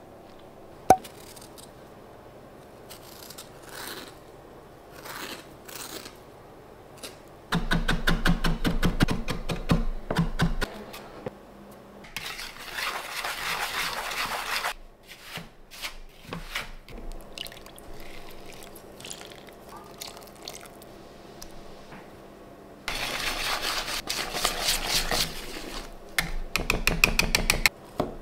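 Kitchen mixing sounds: a whisk beating and stirring in a plastic mixing bowl in fast, regular spells, with scrapes and small knocks of utensils between. A single sharp knock about a second in is the loudest sound.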